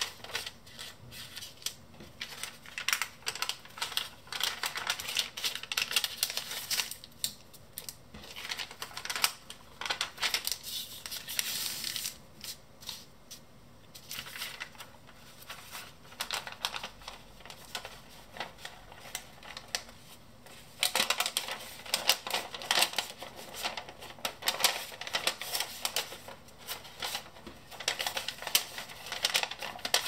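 Stiff kraft paper being folded by hand: rustling and crinkling with many crisp clicks as flaps are lifted and creases pressed. It is busiest at the start and through the last third, and sparser in between.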